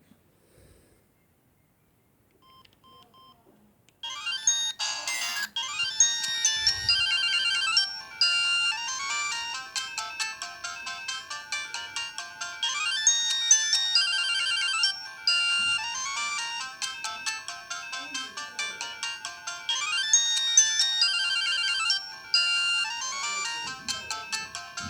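Samsung SGH-X210 mobile phone playing a ringtone: a loud electronic melody of several high notes at once that starts about four seconds in and repeats its phrase, after a few faint beeps.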